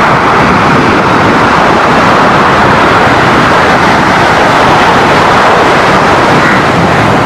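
Sea surf breaking on a sandy beach: a steady rushing noise of waves.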